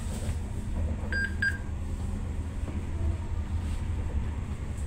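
Steady low rumble inside a Stadler FLIRT ER160 electric multiple unit. About a second in there is a pair of short, high electronic beeps, and the same pair sounds again at the very end.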